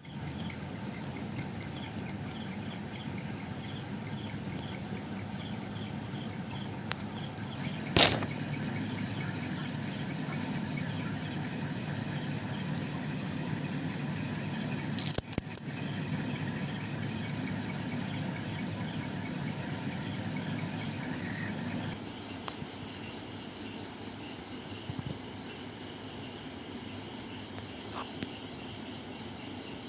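Insects chirping in steady, evenly pulsed trills over a low hum that stops about two-thirds of the way through. Sharp clicks are heard once about a quarter of the way in and again as a quick cluster near the middle.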